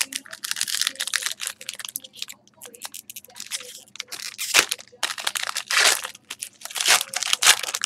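Foil wrapper of a trading-card pack crinkling and crackling as it is handled and torn open, in uneven rustling bursts.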